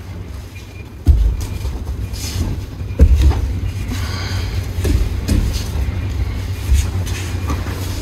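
Thuds and low rumbling of aikido partners' bodies and feet on the dojo mats as they throw and take falls, with the sharpest thuds about a second in and about three seconds in.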